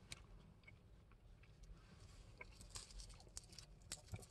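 Faint chewing of a soft, chewy fruit candy with a creamy centre, small mouth clicks scattered through and a few sharper ones near the end.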